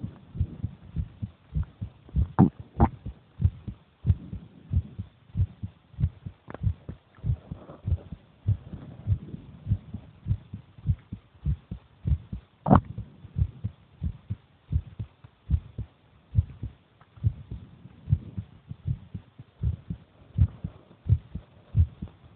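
A human heartbeat: steady, regular low thumps, with a few sharp clicks over it, the loudest a little after the middle.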